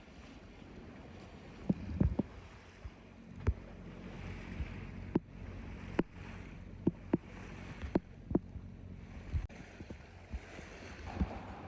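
Boat on the water: sharp, irregular knocks every second or so over faint wind and lapping-wave noise.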